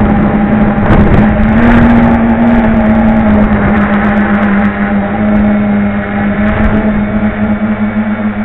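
Electric motors and propellers of a small Batbone FPV drone whirring steadily in flight, picked up by its onboard camera microphone, with a brief rise in pitch about two seconds in as the throttle changes. Wind noise hisses underneath.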